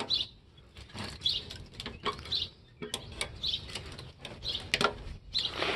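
A small bird chirping, short high notes about once a second, over scattered sharp clicks and snips of metal being worked with hand nippers.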